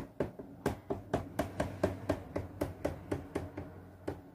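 A Barbie doll's plastic feet tapped step by step on a plastic dollhouse floor as mock footsteps: a steady run of light knocks, about four a second, stopping near the end.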